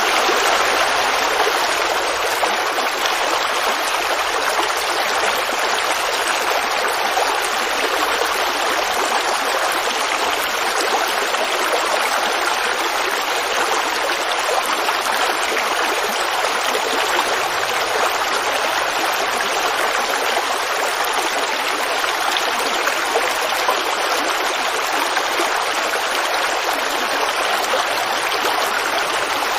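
Creek water running and babbling over rocks in a steady, unbroken rush.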